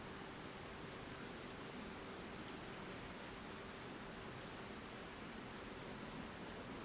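Steady, high-pitched chorus of insects chirring, with no break.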